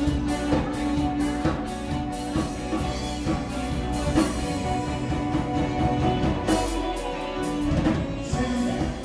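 Live band playing an upbeat song: a drum kit keeping a steady beat under guitar and keyboard.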